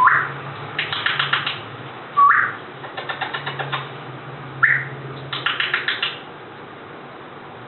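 African grey parrot giving three short rising whistled chirps, each followed by a quick run of sharp clicks, about ten a second.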